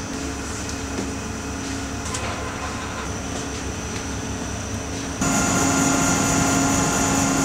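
Steady hum and noise of the seismic test rig's machinery, a low drone with several held tones, stepping up louder about five seconds in.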